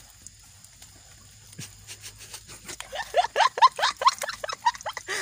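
An animal calling in a rapid run of about a dozen short rising chirps, roughly six a second, starting about three seconds in and lasting some two seconds.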